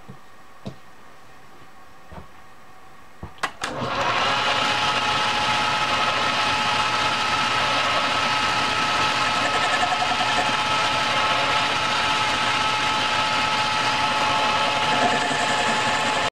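A metal lathe switched on after a couple of sharp clicks about three and a half seconds in, then running steadily with a steady whine as its chuck spins the workpiece.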